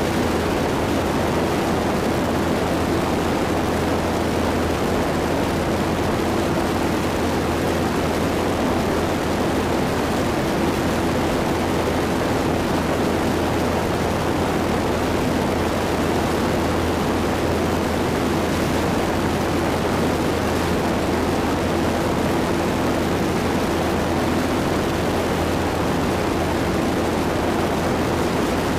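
Zenith STOL CH 750 Super Duty light airplane's engine and propeller droning steadily in level flight, with rushing wind noise.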